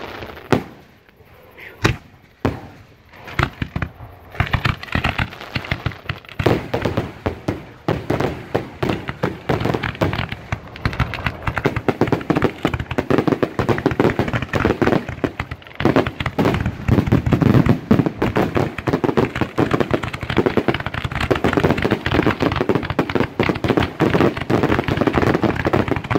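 1.3G aerial display shells bursting overhead: a few separate bangs at first, then from about four seconds in a dense, rapid barrage of overlapping bursts with no gaps, a fireworks finale.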